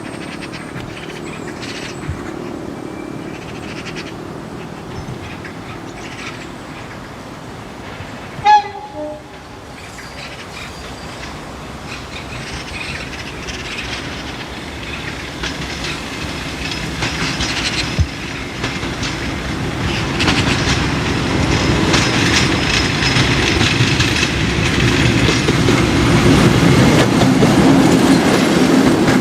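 Diesel locomotive approaching under power, its engine growing steadily louder through the second half. A short horn blast sounds about eight seconds in.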